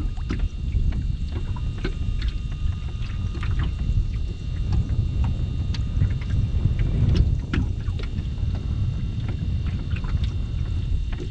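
Wind buffeting the microphone in an open boat, a steady low rumble, with scattered small clicks and knocks and a faint steady high whine.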